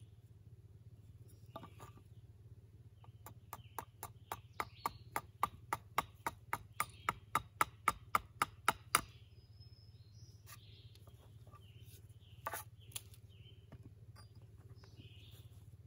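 A rapid run of about twenty sharp tool strikes on wood, roughly four a second and growing louder, that stops abruptly; a couple of single knocks follow.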